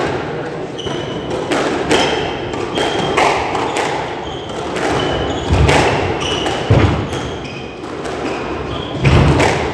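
Squash rally: the ball being struck by rackets and smacking against the court walls in quick succession, with short high squeaks of court shoes on the wooden floor. A few heavier thuds come about halfway through and near the end.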